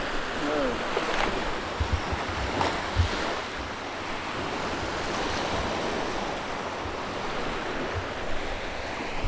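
Sea surf breaking and washing up a sandy beach, a steady wash of noise, with wind buffeting the microphone in low thumps.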